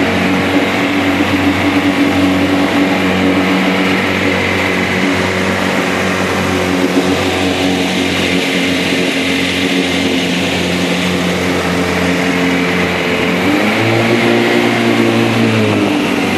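Motorboat engine running steadily under way, over a steady rushing noise. Near the end it briefly rises in pitch, holds for a couple of seconds, then settles back.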